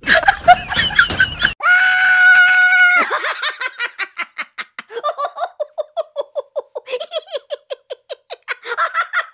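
A person lets out a high-pitched squeal held for about a second, then breaks into a long run of rapid laughter. A short jumble of noise comes before the squeal.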